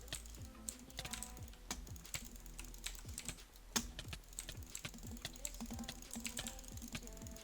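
Rapid, irregular clicking, several clicks a second, like keys being typed.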